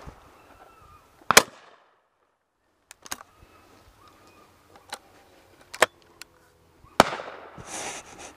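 A series of shotgun shots: two loud, close ones about a second and a half in and about seven seconds in, with three quieter, more distant shots between them.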